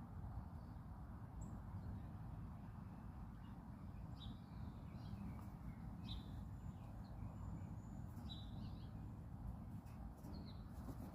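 A few short, high bird chirps scattered over a steady low rumble of background noise.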